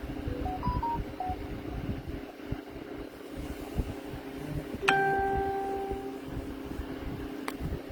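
A few short electronic beeps at different pitches, then a single chime-like tone that rings out and fades over about a second, over a steady low hum; a click near the end.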